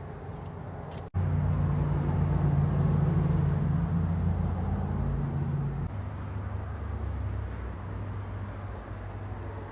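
Steady low hum of a running engine, cutting in abruptly after a brief dropout about a second in and easing slightly about six seconds in.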